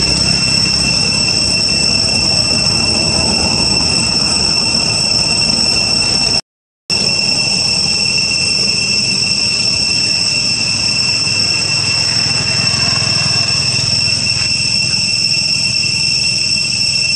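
Steady, high-pitched insect drone over a low rumble, cutting out briefly about six and a half seconds in.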